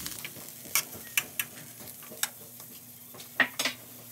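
Metal kitchen tongs clicking and knocking against a hot comal as tomatillos are turned on it, about six sharp clicks with the loudest near the end. Under them runs a faint steady sizzle of cooking.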